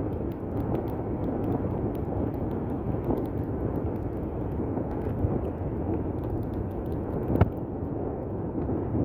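Steady road noise inside a moving car's cabin: engine and tyres running at a constant speed, with a single sharp knock about seven and a half seconds in.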